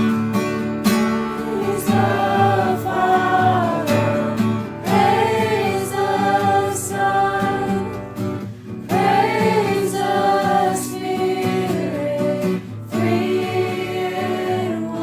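Christian worship music: a choir of voices singing sustained phrases in harmony over guitar accompaniment.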